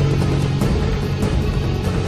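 Dramatic epic-style background music: held low notes under a steady run of percussion hits.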